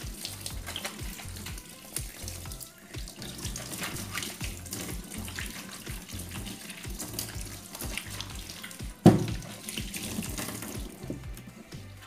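Tap water running into a stainless steel kitchen sink while a wet cloth napkin is scrubbed with bar soap under the stream. A sharp knock about nine seconds in.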